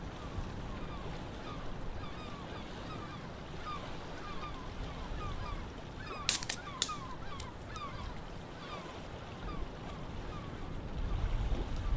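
A flock of birds calling over and over in short falling calls over a low steady rumble of idling engines and water, with two sharp clicks a little past halfway.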